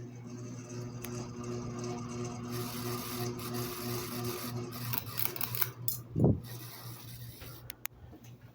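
Ceiling fan motor giving a steady electrical buzz, which the owner calls the buzz of death. The buzz cuts off about halfway through, followed by a few clicks and a single loud thump.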